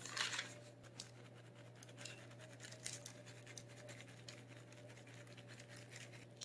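Faint scratching and light taps of pita bread pieces being flipped over and spaced out by hand on a baking pan, with a louder scrape at the start. A steady low hum runs underneath.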